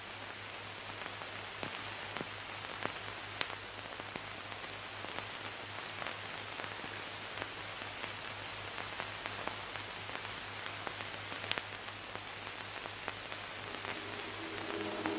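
Steady hiss with a low hum and scattered clicks and crackles, the noise of an old film soundtrack between lines of dialogue. Music comes in near the end.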